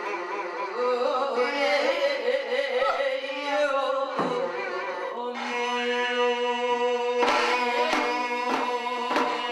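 Korean shamanic ritual music: a sustained, wavering melodic line over drum strokes, which come more often in the last couple of seconds.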